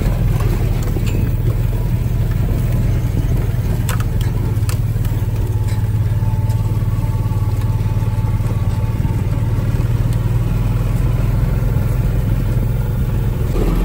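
Side-by-side utility vehicle driving slowly across a rough pasture: a steady, unchanging engine drone, with a couple of light clicks or rattles about four seconds in.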